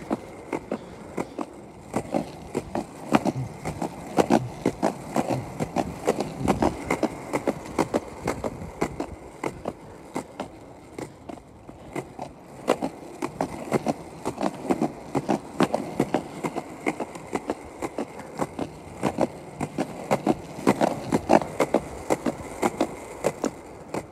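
Penny board riding, its wheels rolling with a steady rumble and many quick, irregular clicks.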